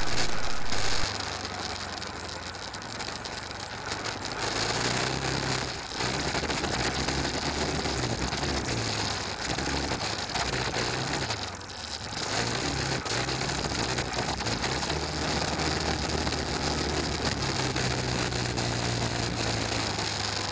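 Off-road vehicle driving slowly over a rough gravel track: the engine runs with its pitch rising and falling, over a steady crunching noise of tyres on stones.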